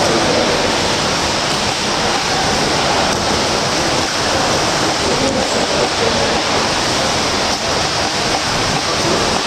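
Steady rushing water noise from swimmers splashing through front crawl in a pool.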